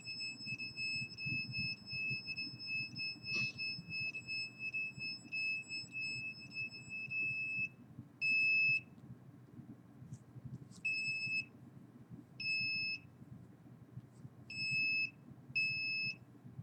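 A high-pitched electronic alarm tone sounds steadily for about eight seconds, then cuts off. It comes back as a string of short, irregularly spaced beeps, each about half a second long.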